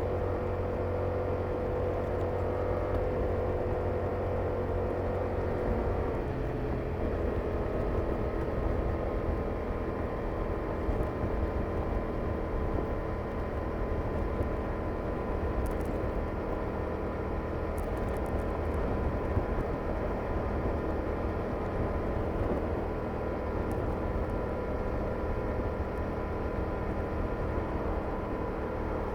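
Yamaha R7's 689 cc parallel-twin engine through its stock exhaust, running steadily while riding. The engine note steps lower about six seconds in, then holds steady.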